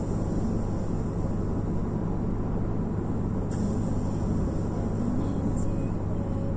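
Cabin noise of a 2004 BMW E60 530i, its 3.0-litre straight-six petrol engine cruising at steady speed: a constant low engine drone under even tyre and wind noise.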